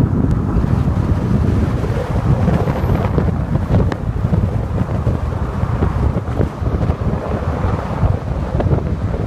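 Wind buffeting the microphone in a moving car, over a steady low rumble of road noise.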